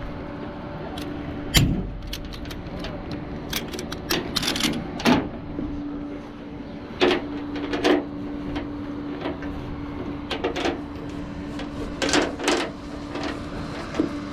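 A tow truck's engine idling as a steady hum, with scattered metal clanks and knocks from the loading gear and a heavy thump about one and a half seconds in.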